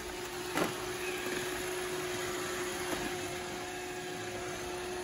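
iRobot Roomba 614 robot vacuum running, a steady whirring hum of its brush and suction motors, with one short knock about half a second in.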